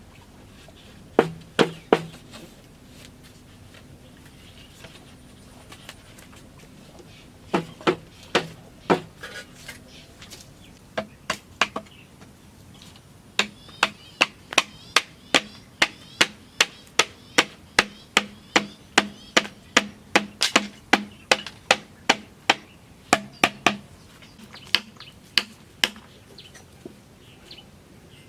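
Repeated sharp blows of a hand tool striking bamboo, in short runs and then a long steady run of about two strikes a second through the middle, with a few more strikes near the end.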